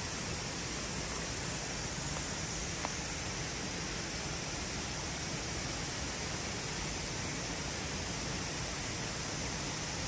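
Steady, even rushing noise with no distinct events, and one faint click about three seconds in.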